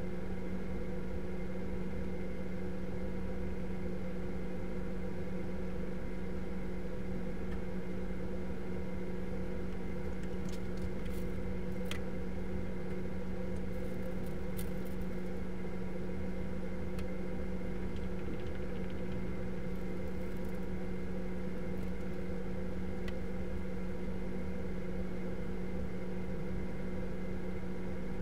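Steady low hum of room tone, with a few faint clicks about halfway through.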